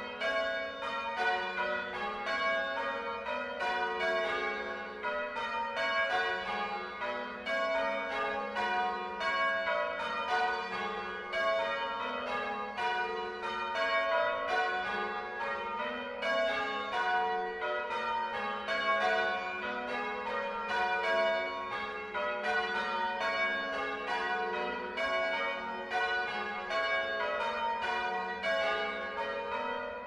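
Church bells rung in changes: the bells strike one after another in quick succession, a steady, even rhythm of ringing strokes with no pause.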